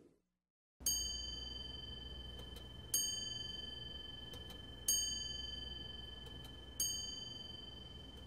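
Four bell-like chimes struck about two seconds apart, each ringing out and fading over a steady high held tone, as a musical intro.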